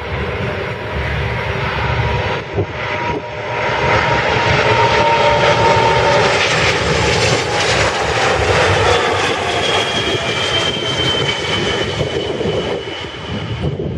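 Jet airliner passing close by: a loud rush of engine noise that swells a few seconds in and eases slightly near the end, with engine whine tones sliding slowly down in pitch as it goes past.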